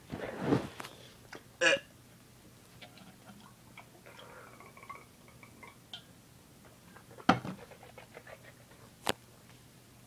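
A man's loud breathy exhale after swallowing cough syrup, then faint handling and drinking sounds as he swigs from a bottle. A sharp knock comes about seven seconds in, and a click a little later.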